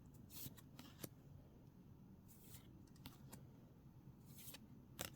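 Trading cards being slid and flicked one over another while looking through a freshly opened pack: faint, short swishes and light clicks, about eight of them, irregularly spaced.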